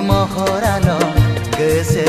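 Film song: a sung melody with a wavering voice over a steady drum beat and backing instruments.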